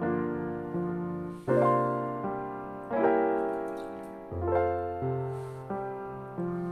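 Gentle background piano music: slow, sustained chords that change about once a second and fade away after each strike.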